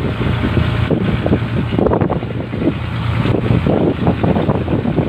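Fishing boat's engine running steadily at sea: a constant low drone with uneven rumbling over it.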